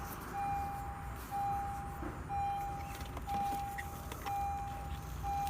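A car's warning chime beeping over and over, one steady tone about once a second with short gaps, with a few faint clicks of handling.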